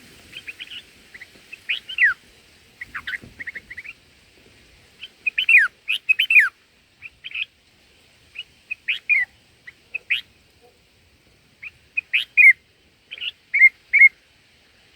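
Bulbul calls: clusters of short, sharp chirps and quick downward-sliding notes, coming in bursts with brief pauses between them.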